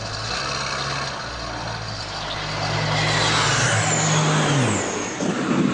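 An engine droning steadily, growing louder through the middle. About four and a half seconds in, its pitch falls away as if it is passing by.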